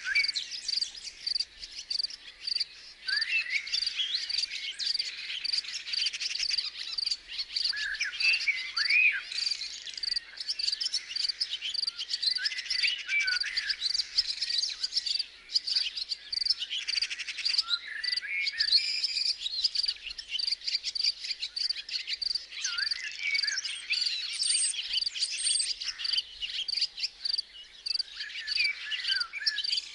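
Nature ambience of insects chirping in a steady, evenly repeating high-pitched pulse, with birds calling in short rising and falling chirps over it.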